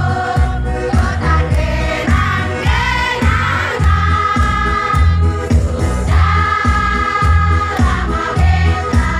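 Many voices singing together over music with a steady, pulsing bass beat.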